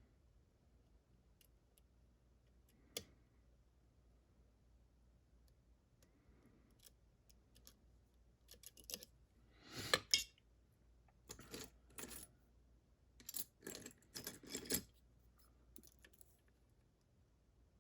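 Small metal lock parts and tools clicking and clinking. A single sharp click comes about three seconds in, then a run of short metallic rattles and clinks through the second half, the loudest about ten seconds in.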